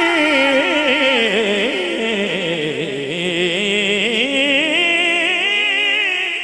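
Male naat reciter singing a long, wavering, ornamented melisma on one drawn-out syllable through a microphone. The pitch slides low about halfway through and then climbs back up.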